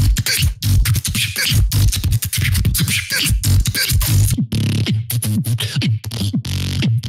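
Beatboxer performing a battle round into a microphone: a fast run of kick, snare and hi-hat mouth sounds over deep bass tones that slide in pitch.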